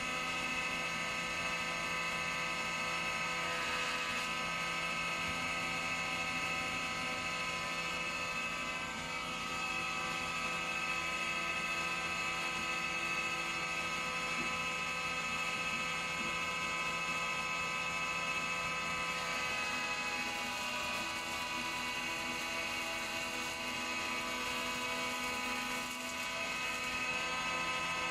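Planer-thicknesser (jointer) running with a steady whine as a long Sapele board is passed over its cutter block for edge-straightening. The tone shifts and brightens about two-thirds of the way through, when the board is fed again.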